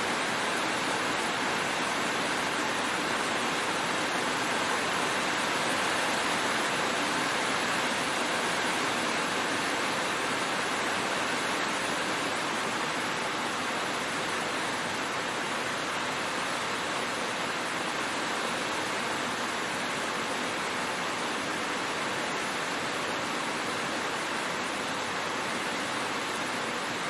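Heavy rain falling steadily on a road, an even, unbroken hiss with no thunder.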